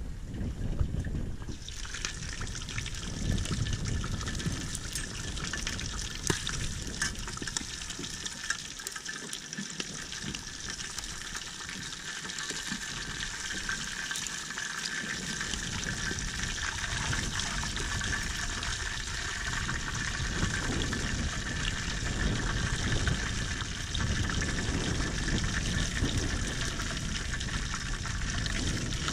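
Whole fish frying in a pot of hot oil, a steady sizzle that starts about two seconds in, while tongs lift the fish out.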